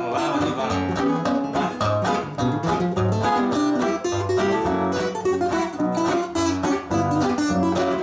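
Two acoustic guitars playing together in an instrumental passage, with rhythmic strummed chords over a moving bass line.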